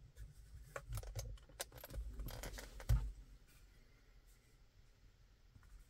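Rear-view mirror (a Homelink mirror) being tilted and adjusted by hand: a run of small plastic clicks and rubbing over the first three seconds, ending in a sharper knock about three seconds in.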